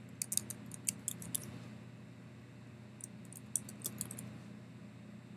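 Typing on a computer keyboard: two quick runs of key clicks, the first in the opening second and a half and the second about three seconds in, over a low steady hum.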